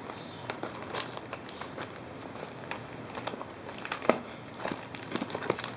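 Packaging crinkling and crackling as it is opened by hand, with scattered small clicks and a sharper click about four seconds in.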